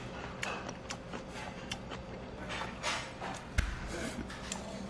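Eating sounds: chewing and small mouth clicks, with light taps of chopsticks on dishes and a single low thump about three and a half seconds in, over a steady low hum.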